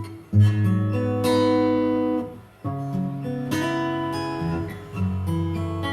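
Sigma DM15 dreadnought acoustic guitar played unplugged: chords strummed every couple of seconds, each left to ring out and fade before the next.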